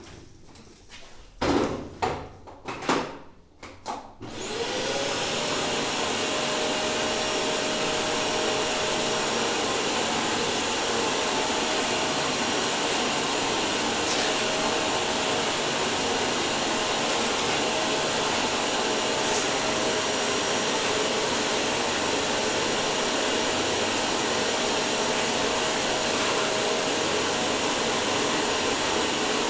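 A few loud knocks, then about four seconds in a vacuum cleaner motor starts with a rising whine and runs steadily, pulling air through a homemade dust separator made of plumbing pipes.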